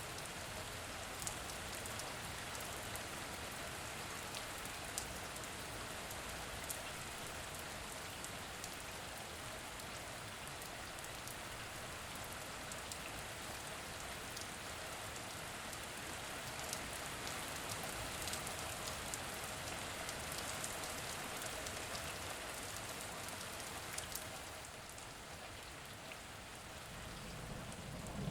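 Steady rain falling on a surface, with scattered sharper drips standing out of the even patter; it eases a little near the end.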